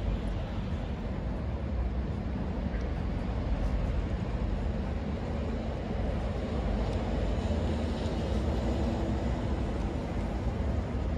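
Steady outdoor city ambience: an even low rumble with no distinct events.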